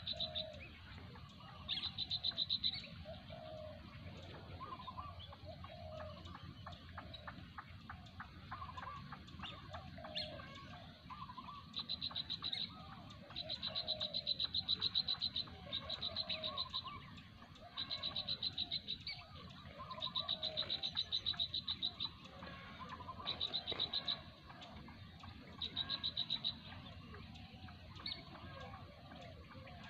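Frogs calling at the water's edge: rapid rattling trills in bursts of about a second, repeating every couple of seconds, over softer, lower short calls throughout.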